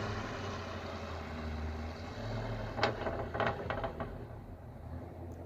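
LS1 5.7-litre V8 with freshly fitted long-tube headers, a low exhaust rumble that slowly fades away. A few sharp clicks come about three to four seconds in.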